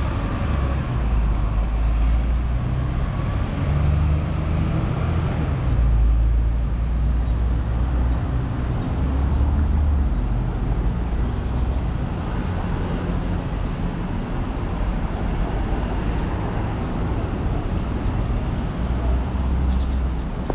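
Road traffic ambience: a steady low rumble of passing vehicles.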